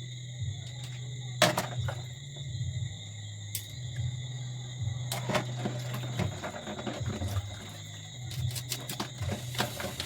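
Scattered clicks and knocks of raw crabs being handled and their shells broken apart during cleaning, the loudest about a second and a half in, over a steady high chirring of insects and a low hum.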